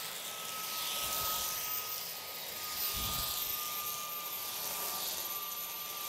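Roidmi cordless stick vacuum running, a steady high motor whine over rushing airflow that swells and eases every couple of seconds.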